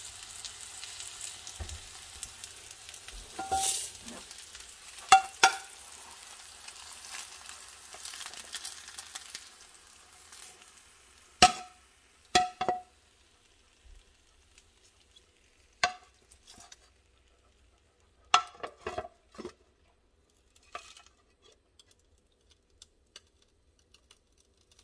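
Potatoes and bacon sizzling in a nonstick frying pan, a steady sizzle with a few ringing knocks of the pan, dying away about ten seconds in. After that come separate sharp knocks and clinks of the pan and a ceramic plate as the food is turned out of the pan.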